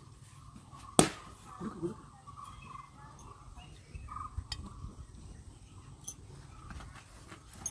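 A single sharp click about a second in, then a few faint small clicks and a brief bit of voice over low room noise.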